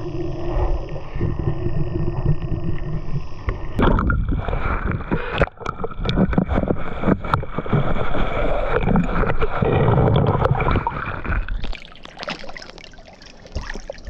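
Water sloshing and gurgling close to the microphone, as a person moves through it. A steady low rumble fills the first few seconds. Then comes a run of splashes and sharp knocks, which dies down near the end.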